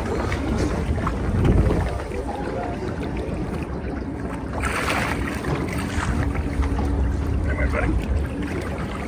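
Wind rumbling on the microphone and water sloshing against the boat's hull, with a louder splash about five seconds in as a sturgeon is handled at the boat's side.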